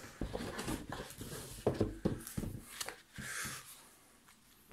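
Handling noises: short knocks and clicks of items being lifted out of a box, then a brief paper rustle about three seconds in as the pages of a book are leafed through.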